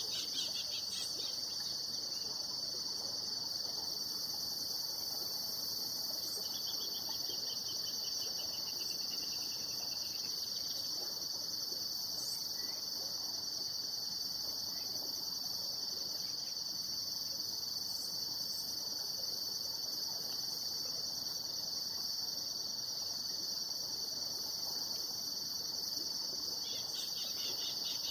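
Steady high-pitched insect chorus of crickets or cicadas, with short runs of rapid chirping at the start, from about six to ten seconds in, and again near the end.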